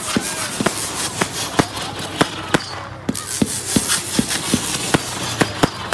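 Fireworks going off: a rapid, irregular string of bangs, several a second, over a steady crackling hiss.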